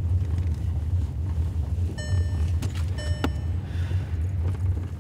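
Steady low road-and-engine rumble of a car driving, heard from inside the cabin. Two short high tones sound about two and three seconds in.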